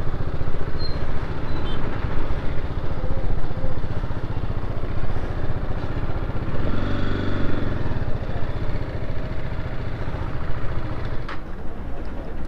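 BMW G 310 R motorcycle's single-cylinder engine idling with a steady low, even beat, amid street traffic. A single sharp click comes near the end.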